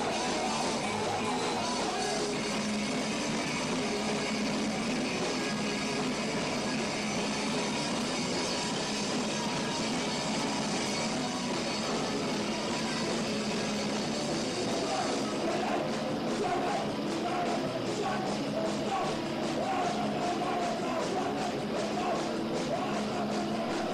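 Punk rock band playing live and loud, with guitars and drums. About two-thirds of the way in the top end thins and a regular drumbeat stands out.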